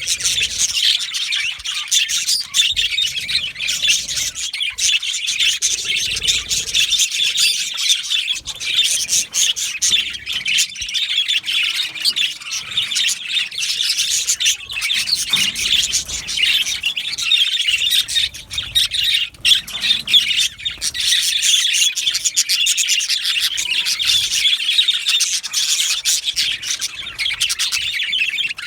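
A flock of budgerigars chirping and chattering all at once: a dense, unbroken mass of rapid high-pitched chirps and squawks.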